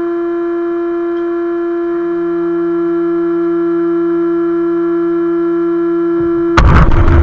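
A steady, unwavering tone with overtones, with a fainter lower tone coming and going beneath it. About six and a half seconds in it is swamped by a sudden, much louder rush of noise.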